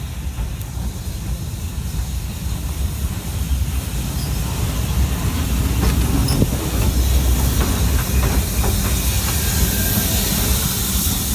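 Steam locomotive drawing slowly past at close range: a steady low rumble with hissing steam, the hiss and overall level growing louder through the second half, and a few light clanks.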